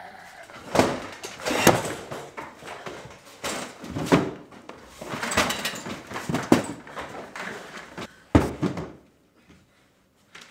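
A door and wooden furniture being banged and shoved: a quick run of thuds, knocks and slams with scraping between them, for about eight seconds, then it stops abruptly.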